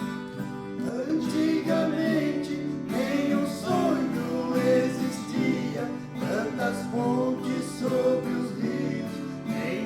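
A caipira trio's viola caipira and acoustic guitar playing a plucked instrumental passage of a moda de viola song.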